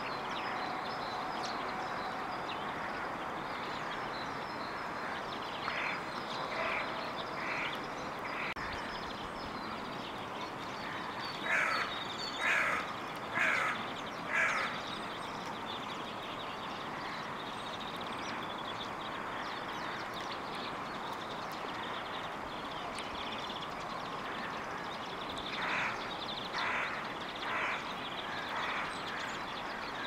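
A crow cawing in three runs of four caws, about one caw a second: a few seconds in, louder around the middle, and again near the end, over steady background noise.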